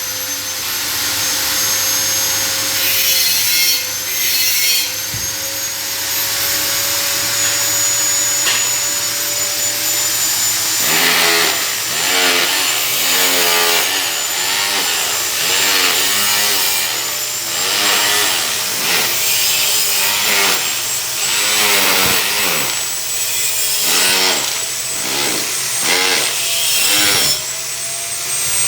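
Electric power tool working stainless steel pipe, its motor giving a steady high whine that slowly climbs in pitch. From about eleven seconds in, a rhythmic wavering sound joins it as the tool works the metal.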